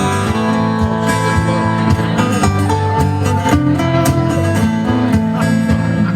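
Live band playing an instrumental passage without vocals: guitars holding and changing chords over regular drum hits.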